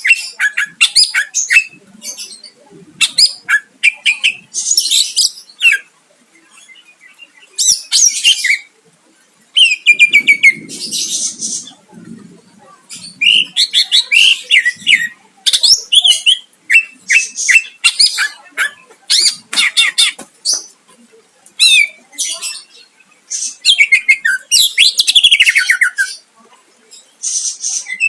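Cucak ijo (greater green leafbird) singing hard in loud, varied bursts of rapid chirps, trills and harsh squawky notes, with short pauses between phrases.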